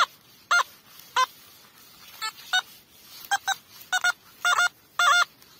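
Metal detector beeping: about a dozen short electronic beeps, some single and some in quick pairs. Near the end they come faster and warble up and down in pitch.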